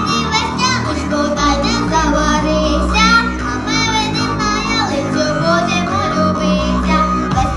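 A boy singing into a handheld microphone over a loud electronic backing track.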